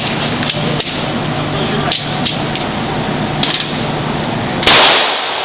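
A single loud gunshot about four and a half seconds in, ringing out briefly, with fainter sharp cracks scattered before it over a steady low hum.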